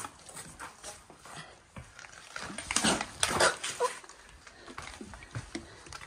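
A hiker scrambling through a narrow rock cleft: irregular scuffing and scraping of boots and pack against rock, loudest in a cluster about halfway through.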